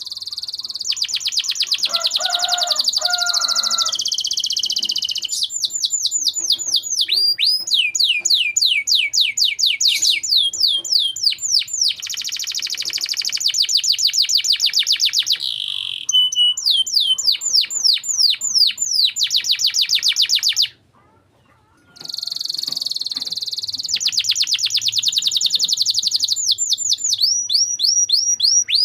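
Domestic canary singing vigorously in long rolling trills and fast runs of falling whistled notes, with a break of about a second just past the middle.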